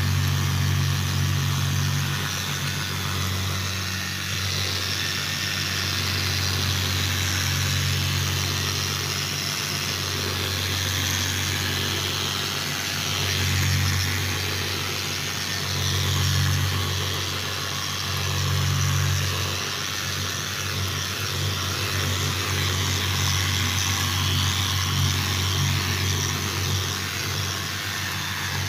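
Handheld orbital sander running steadily while wet-sanding a scratch out of a vanity countertop. Its low hum and hiss swell and dip as the pad is pressed and moved over the surface.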